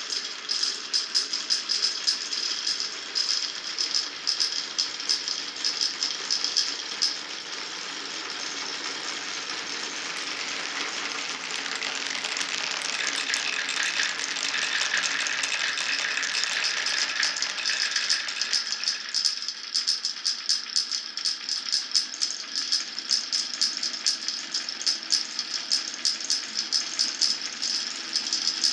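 Glass marbles rolling and clattering down a wooden marble run, rapid clicking as they run over the track pieces. For about ten seconds in the middle this eases into a smoother, continuous rolling sound, then the rapid clicking returns.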